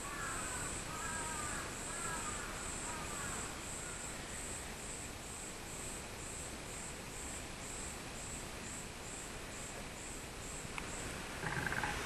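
Robust cicada (minmin-zemi) singing: a pulsing call of about two to three pulses a second that slows and stops near the end. A bird calls several times over it in the first few seconds.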